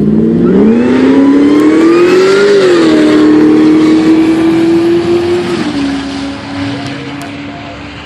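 Whipple-supercharged Ford SVT Lightning pickup's V8 accelerating hard on a drag-strip launch. The engine pitch climbs for about two and a half seconds, drops at a gear shift, then drops again near six seconds before the sound fades as the truck pulls away.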